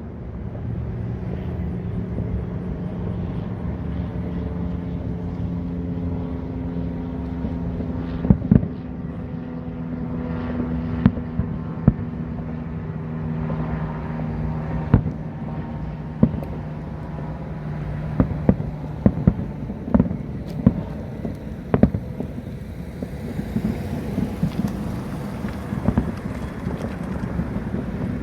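Fireworks going off outdoors: scattered sharp bangs and pops, more frequent in the second half. They sound over wind on the microphone and a steady low hum that fades out about two-thirds of the way through.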